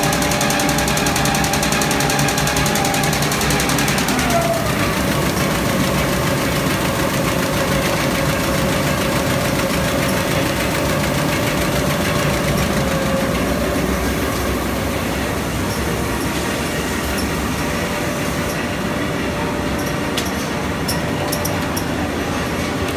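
Automated book sewing machine running: a steady mechanical din with several whining motor tones and a fast fine ticking. One whining tone drops in pitch about four seconds in and then holds steady. A few sharp clicks come near the end.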